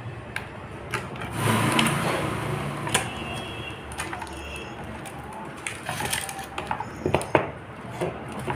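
Clicks, knocks and rubbing of plastic and circuit board as a switch-mode power-supply board is worked out of its plastic case by hand, with a stretch of rustling about one and a half to three seconds in.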